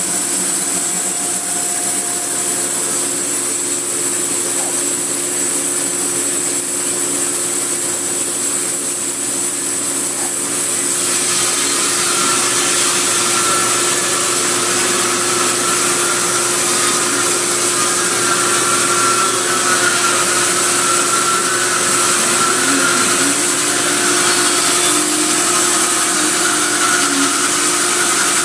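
Vertical sawmill driven by a 10 hp motor, running steadily with a constant machine hum. About eleven seconds in, the sound turns harsher and fuller in the upper range.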